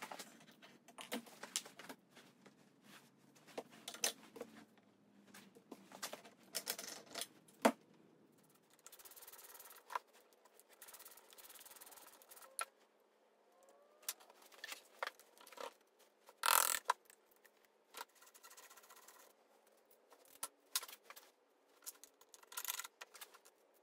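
Metal clicks, clinks and scrapes of hand tools and parts of a Type 9 gearbox being handled and worked on a workbench. A louder knock comes about two-thirds of the way through.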